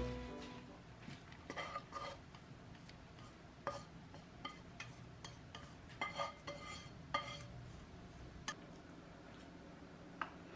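Scattered light clinks and taps of wooden chopsticks against a nonstick frying pan and of the pan against a ceramic bowl, as noodles are stirred and tipped out of the pan.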